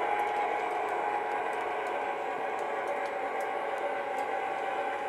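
Proto-Sound 2.0 sound system in a Lionel Chessie U30C O gauge model locomotive playing a steady diesel engine rumble as the model rolls slowly, with faint irregular ticks from the wheels on the three-rail track.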